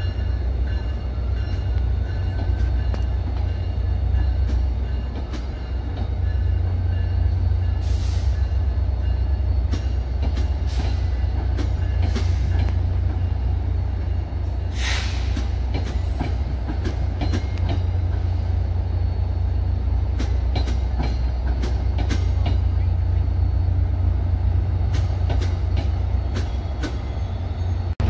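NJ Transit passenger coaches rolling slowly past: a steady low rumble with frequent clicks of the wheels over rail joints and faint high wheel squeal, plus one louder screech about halfway through.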